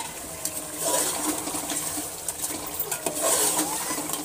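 Steel spoon clinking and scraping against an aluminium cooking pot as chicken in gravy is stirred, with several sharp clinks and bursts of scraping in between.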